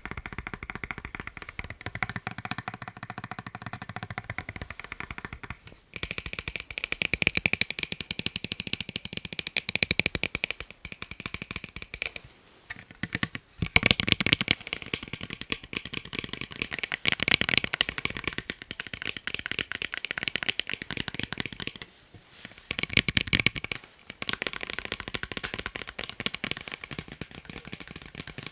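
Rapid fingertip-style tapping on a pair of eyeglasses, a dense stream of light clicks that stops briefly a few times before starting again.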